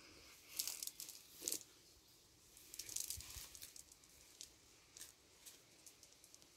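Faint rustling and crinkling of a cast net's mesh being gathered and folded over the arm for a throw. It comes in a few short bursts in the first half, then gives way to scattered light clicks.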